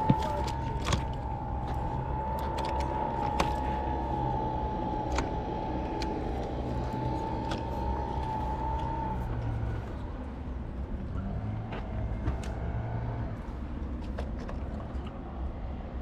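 A motor running steadily with a low hum. Over it a high whine wavers slightly and fades out about nine seconds in. A few scattered sharp clicks and knocks.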